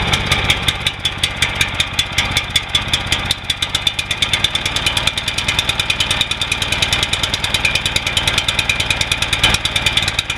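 Briggs & Stratton Vanguard 9 hp overhead-valve single-cylinder engine on a 5000-watt portable generator running at a steady, even beat, seconds after a cold start: its first start after sitting 14 months.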